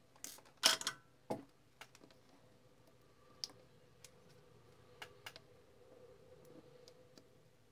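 Sharp clicks and light taps from handling small electronics parts: a spring-loaded test hook clip and a probe against a small circuit board. The loudest clicks come in a cluster in the first second and a half, then lighter scattered ticks follow.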